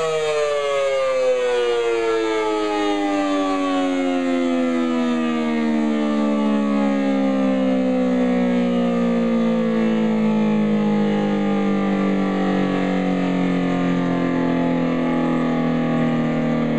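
Federal Signal SD-10 single-tone outdoor warning siren winding down after being switched off: its pitch begins to fall at the start and glides slowly lower, easing off toward a low steady hum near the end.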